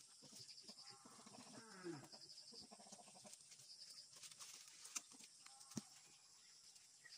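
Faint animal calls in the background: a call falling in pitch about two seconds in and another just after, over repeated high chirps, with two sharp clicks near the end.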